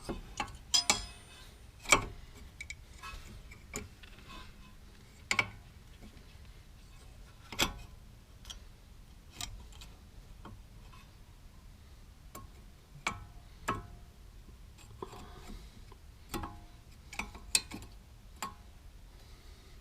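Irregular metallic clicks, clinks and a few sharper knocks as a new brake pad is fitted into a Toyota Avensis front brake caliper bracket, some strikes ringing briefly.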